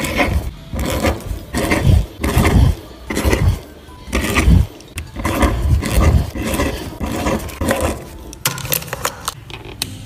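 A pen scratching across paper in quick, irregular strokes as handwritten words are formed, each stroke a short rasp with a soft knock against the desk. Background music plays faintly underneath.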